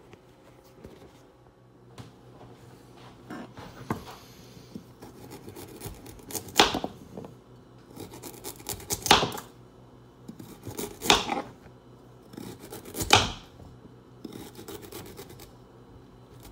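A metal kitchen utensil scraping against a hard surface: faint scratches at first, then from about six seconds in four loud scraping strokes about two seconds apart.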